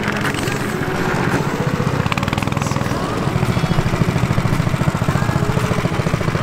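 Go-kart's small engine running during ice karting, a steady rapid throb that grows louder about halfway through.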